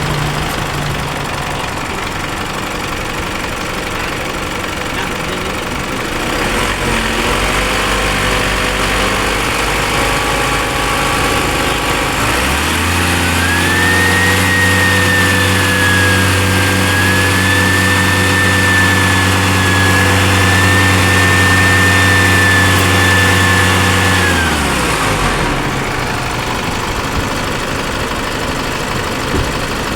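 Isuzu MU-X turbo-diesel engine idling, then raised to a higher held speed about twelve seconds in, with a thin high whistle riding over the engine note, before dropping back to idle. This is the loud turbo noise whose cause had not yet been found.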